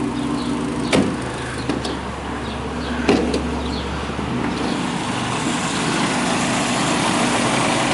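1955 MG TF1500's four-cylinder engine idling steadily, with two sharp knocks about one and three seconds in.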